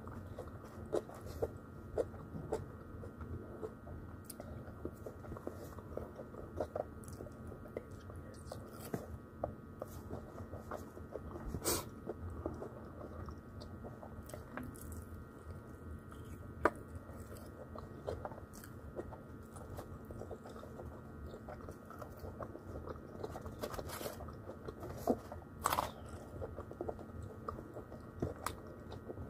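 Close-up chewing and biting of fried chicken: irregular wet smacks and crisp crunches of the breading, with a few louder crunches near the middle and near the end.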